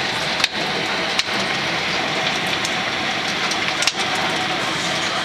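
Heavy hail pelting down in a steady, dense hiss, with a few sharper cracks of single hailstones striking hard, about half a second, a second and four seconds in.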